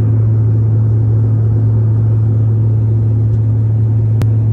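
Steady drone of a jet airliner's cabin in flight, a low hum of engines and rushing air, with one brief click near the end.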